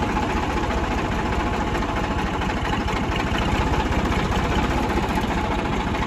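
Tractor diesel engine idling close by, a steady low throb with no change in speed.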